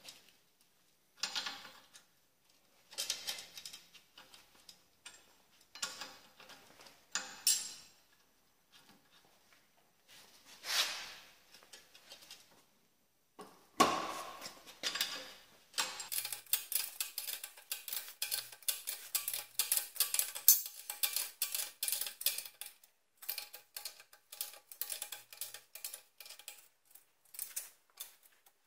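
Hand tools working metal on a car's strut and top-mount bearing assembly. Scattered short scrapes and knocks come first; about halfway in they give way to a long run of fast, dense metallic clicking, like a ratchet wrench being worked.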